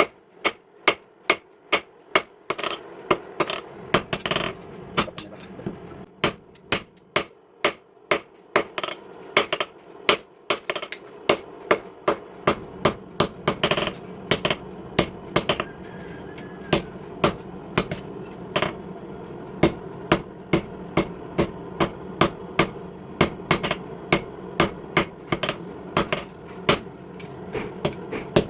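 Hammer blows on hot steel on an anvil, forging a car leaf spring into a cleaver blade: sharp, ringing strikes in a steady rhythm of about two to three a second, over a steady hum that comes in about two seconds in.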